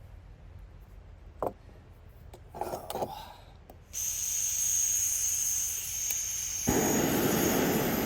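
A few small clicks and clatter, then a gas stove's valve opens with a sudden steady hiss about four seconds in. Near the end the burner lights with a click and burns with a steady rushing noise.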